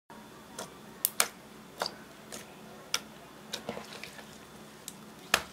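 Sticky clear slime tinted neon pink with eyeshadow, poked and pressed by fingertips, giving about a dozen sharp, irregular clicks and pops over a faint steady hum. The loudest pops come about a second in and near the end.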